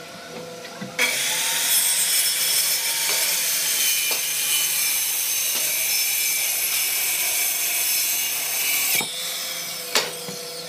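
Makita circular saw cutting through a thick solid-hardwood slab. The sawing starts abruptly about a second in, runs steadily for about eight seconds, then stops, followed shortly after by a sharp knock.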